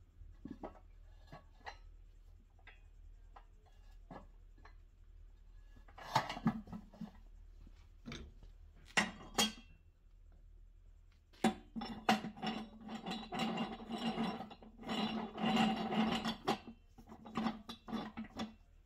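A small tire being worked off its rim on a manual tire changing stand: scattered light knocks and clinks at first, then from about halfway a longer stretch of rubber scraping and rubbing against the rim and the metal bar as the bead is forced over.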